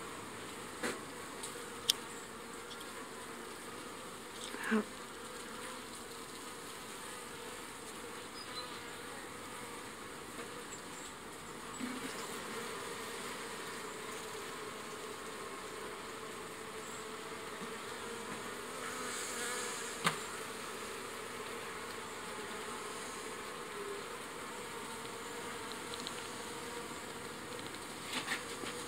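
Honeybee colony buzzing steadily from an open hive, with a few short knocks from the wooden frames being handled.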